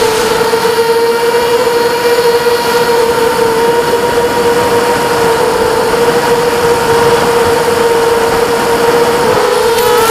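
KingKong 260 FPV quadcopter's brushless motors and propellers whining at a steady high pitch over a rushing noise, heard from the drone itself; near the end the pitch wavers and dips.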